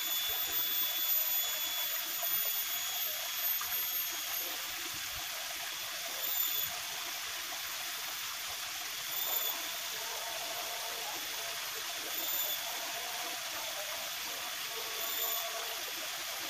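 Small ditch of muddy water flowing with a steady rushing hiss. A faint, brief high chirp repeats about every three seconds.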